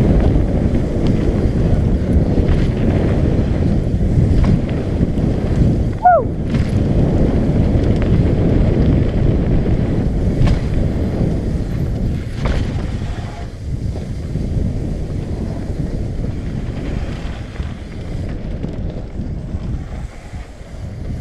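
Wind buffeting the camera microphone during a mountain-bike descent, with scattered clicks and rattles and a short falling squeak about six seconds in. The wind noise eases in the second half.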